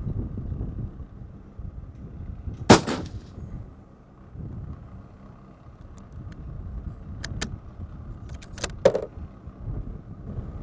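A single rifle shot about three seconds in, with a short echo, followed later by several sharp clicks and clacks. A steady low rumble runs underneath.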